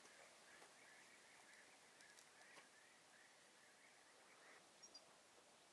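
Near silence: faint outdoor ambience with a faint, wavering high-pitched sound that fades a little before the end, and a couple of tiny chirps near the end.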